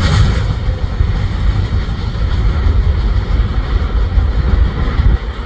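Tail end of a CSX freight train rolling away on the track: the rattle of the last cars' wheels on the rails fades within about the first second, leaving a loud, uneven low rumble.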